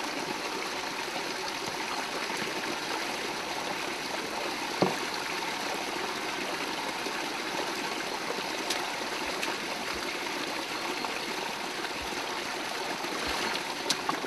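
Spring water spilling from a stone-built outlet and running over rocks in a steady trickle. A sharp knock about five seconds in, and a couple of faint clicks near the end.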